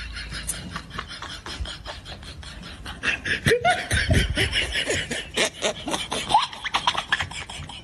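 People laughing, starting about three seconds in, over a fast rasping run of small clicks.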